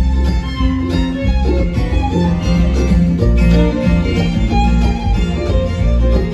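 Live bluegrass band playing an instrumental break, the fiddle to the fore over mandolin, acoustic guitar and bass.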